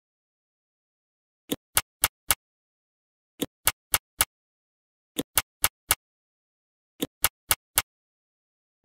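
Sharp clicks in four quick runs of four, each run about a second long and evenly spaced, with dead silence between the runs.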